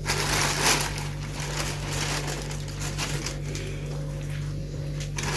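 Plastic bags crinkling and rustling as they are handled, loudest in the first second, over a steady low hum.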